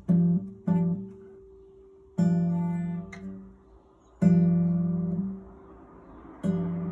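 Acoustic guitar chords strummed five times, the same chord each time. Some are cut short and some are let ring for about a second.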